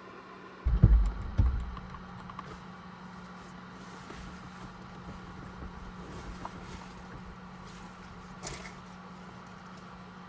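Two or three heavy thumps about a second in, then a steady low hum with small knocks and rustles, as a person moves about inside a truck cab.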